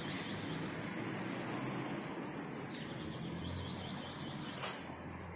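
A steady high-pitched whine over a low background hiss, with a faint click near the end.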